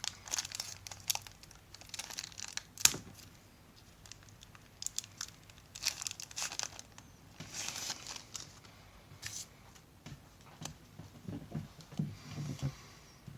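Wax pack wrapper of 1991 Score baseball cards being torn open and crinkled: irregular crackles and rustles with quiet gaps between.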